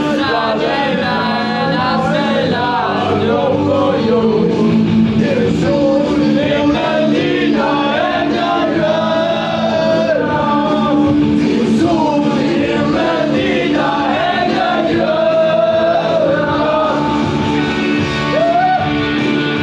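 Music with singing: a rock-style song with a vocal line over steady sustained accompaniment.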